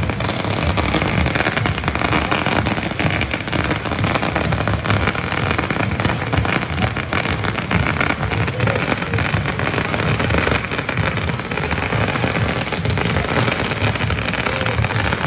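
Fireworks crackling and popping in a continuous, dense din, steady throughout with no single standout bang.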